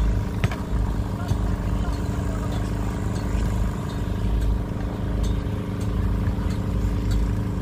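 Steady low rumble with a constant mechanical hum, outdoor background noise.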